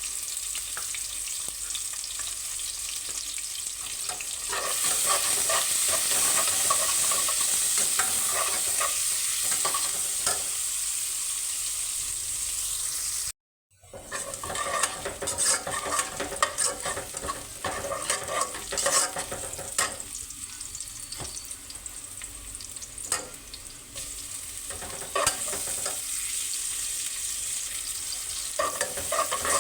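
Aloo gobhi (potatoes and cauliflower) frying in oil in a pan, with a steady high sizzle. A spatula stirring scrapes and knocks against the pan at irregular moments. The sound cuts out for a moment about halfway through, then resumes.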